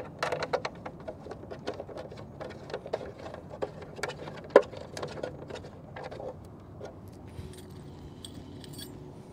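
Small bolts being handled and started by hand into the carbon-fibre reflector panels of a portable satellite dish: a run of irregular light clicks and taps, thinning out about seven seconds in.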